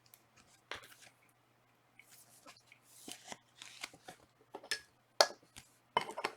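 Panini Prizm trading cards being handled and flipped through by hand: soft, scattered rustles and ticks of card sliding on card, a little louder near the end.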